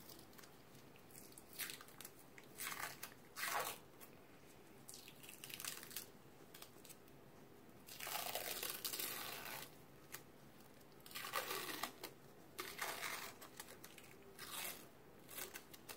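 Adhesive tape and clear film dressing being peeled off skin by gloved hands, in a series of short pulls, the longest about eight seconds in and lasting nearly two seconds.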